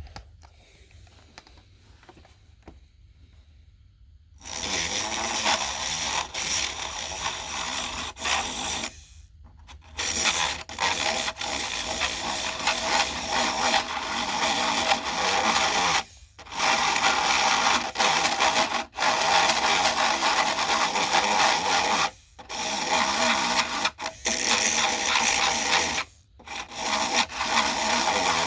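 Nail file rubbing rapidly back and forth over the PlayStation 3 Fat's rusted touch-eject contacts, scraping the rust off. It starts about four seconds in and goes on as a steady rasp with brief pauses every few seconds.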